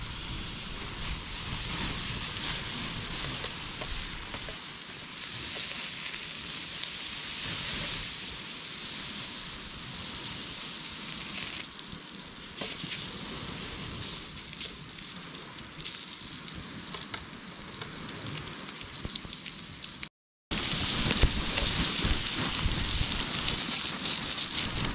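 Butter sizzling in a hot steel pan over campfire coals, a steady hiss. After a brief break about twenty seconds in, pieces of coral trout fry in the butter with a slightly louder sizzle.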